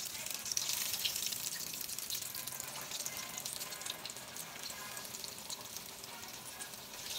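Hot oil in a stainless steel frying pan sizzling and crackling as battered pechay (napa cabbage) rolls are laid in to deep-fry. A dense crackling hiss, loudest in the first couple of seconds.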